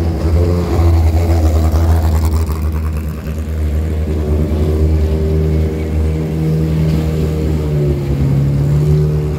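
Long-tail boat engines running loud as boats speed past close by. A low engine hum leads at first; about halfway through a higher engine note comes in and rises a little near the end.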